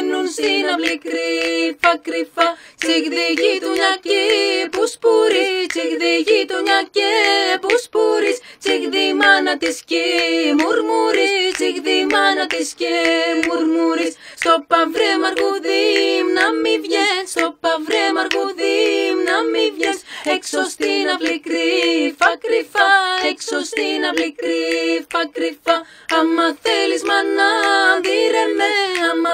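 Women's voices singing a cappella in polyphony: several voices hold and weave separate lines together in a folk song, with no instruments.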